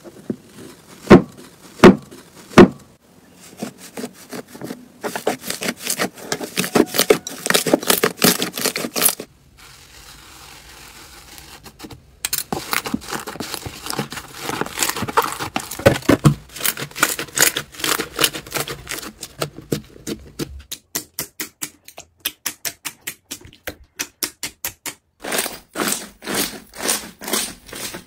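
Slime being pressed, poked and squeezed by hand, making sticky clicking and popping sounds. Three loud separate pops come about a second in, followed by runs of fast crackling clicks, a quieter lull around the ten-second mark, and more rapid, rhythmic clicking near the end.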